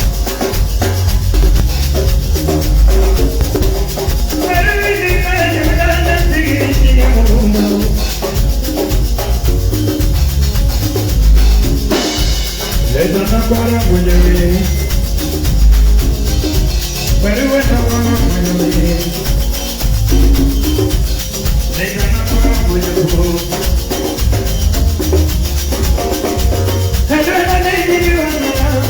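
Live band playing through a PA during a sound check: strong bass, shaker percussion and drums under a wavering melodic lead line.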